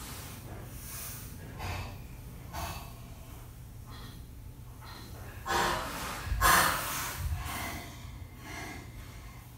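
A woman's heavy, strained breathing in pain: separate noisy breaths and snorting gasps, the loudest cluster of gasps about halfway through, as she struggles through cramps to move. A low steady hum lies underneath.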